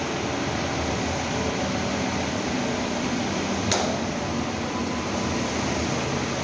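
Ride-on wet floor scrubber running with a steady machine whir from its motors, with one short click a little under four seconds in.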